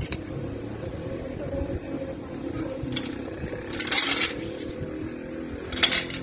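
A motor running steadily, with three short bursts of hissing noise, the longest about four seconds in and the loudest near the end.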